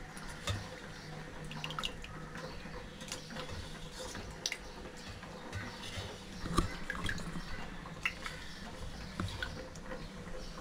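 Hands washing small pieces of raw chicken in a steel bowl of water: irregular small splashes and drips.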